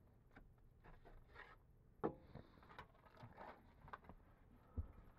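Faint scuffs, rubs and a few light knocks of someone shifting about among wood framing and insulation, over a low, steady background hum.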